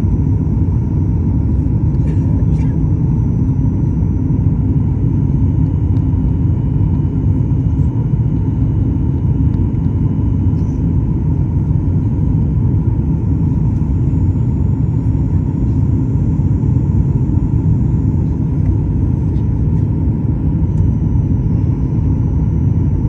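Steady low rumble of engine and airflow noise inside a jet airliner's cabin during the descent on approach to landing.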